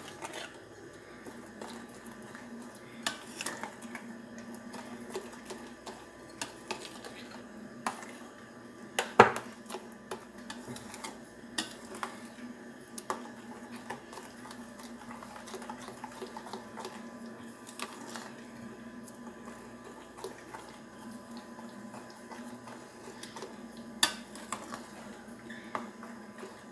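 Metal spoon stirring batter in a glass bowl, clinking and scraping against the glass in scattered, irregular clicks, with one louder clink about nine seconds in.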